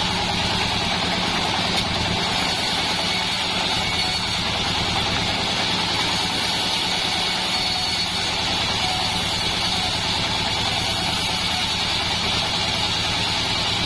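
Assembled bandsaw mill running steadily, with its motor and blade giving an even, unchanging drone.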